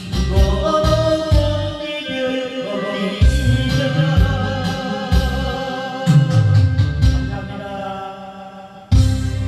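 Music with a singing voice: long held, wavering sung notes over a low pulsing bass. It cuts abruptly into a new, louder passage near the end.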